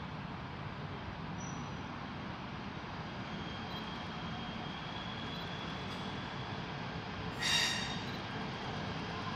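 KTM Komuter electric multiple-unit train running on the line: a steady rumble with a faint high whine. A short high-pitched squeal comes near the end.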